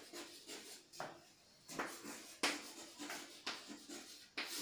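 Chalk writing on a chalkboard: a string of irregular, faint taps and short scrapes as letters are written.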